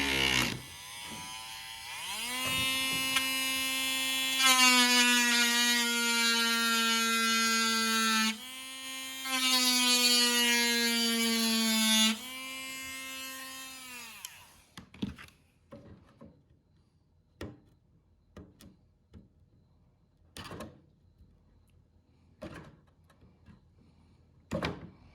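Small electric drill drilling out a pin hinge: it spins up and runs with a steady whine for about ten seconds, dipping briefly partway, then winds down. Afterward come scattered light clicks and knocks of handling the part.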